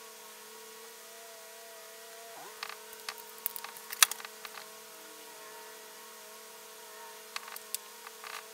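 Faint steady electrical hum, with a scatter of small clicks and taps from makeup items being handled: a cluster from about two and a half to four and a half seconds in, the loudest near four seconds, and a few more near the end.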